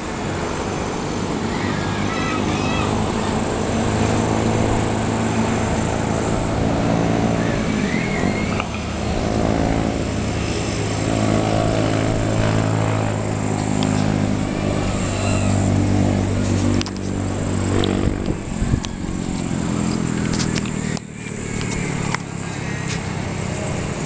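Motorcycle and other vehicle engines on a road below, a steady low drone that swells and fades as they pass.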